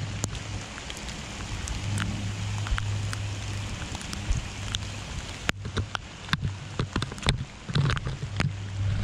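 Heavy rain falling on open water and wet rocks: a steady hiss, with drops striking close to the microphone as scattered sharp taps. A steady low hum runs underneath.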